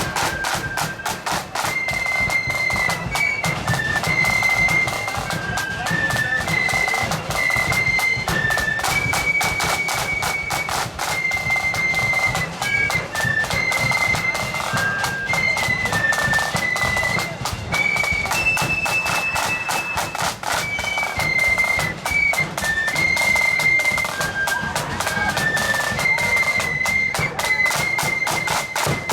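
Marching band with high flutes playing a tune in unison over a steady snare and bass drum beat.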